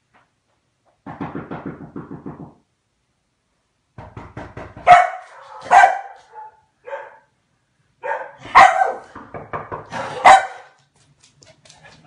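Komondor dog barking: a low pulsing sound about a second in, then two bouts of loud barks a few seconds apart.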